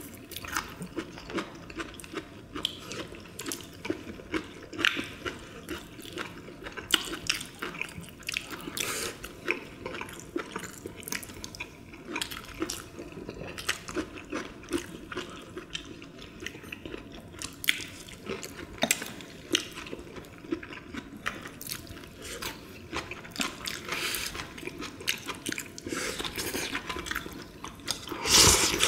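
Close-up eating sounds from several people: wet chewing and lip-smacking with many small sharp clicks. Near the end comes a louder slurp as soup is drunk straight from a bowl.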